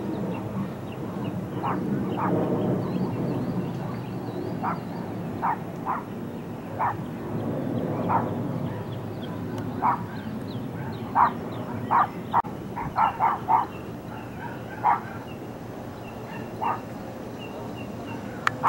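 A dog barking in short, sharp single barks spaced irregularly about a second apart, with a quick run of five or six barks about two-thirds of the way through. A low background rumble sits underneath, stronger in the first few seconds.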